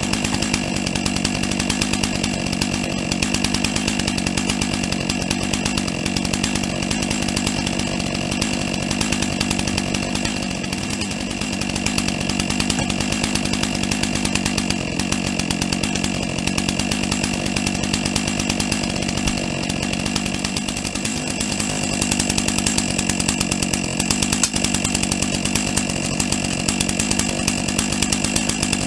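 Stihl MS 661 large two-stroke chainsaw with a square-ground full-chisel chain, running steadily at high revs and cutting through dry, seasoned oak logs.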